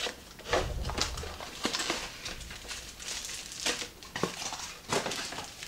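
A knife slitting the tape on a small cardboard parcel, then the cardboard rustling and scraping as the parcel is pulled open, in a run of irregular rustles and sharp clicks.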